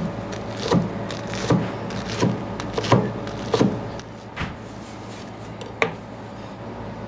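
A run of sharp wooden knocks, about one every three-quarters of a second, thinning out and stopping around six seconds in, over a steady low hum.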